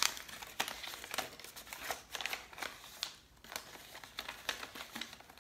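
Folded paper bill crinkling and crackling as it is unfolded and handled in the hands, with many quick, irregular crackles.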